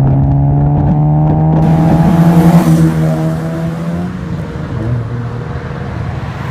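Honda City four-cylinder engine with an aftermarket full exhaust and air intake, accelerating with a drone that rises slowly in pitch and is loudest about two and a half seconds in, then fades as the car pulls away.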